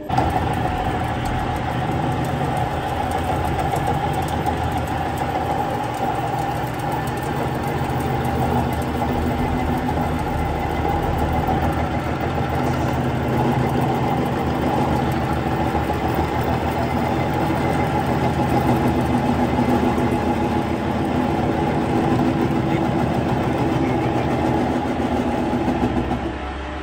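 Metal lathe starting up, then running steadily with its chuck spinning a tie rod ball stud: an even machine hum with a steady whine.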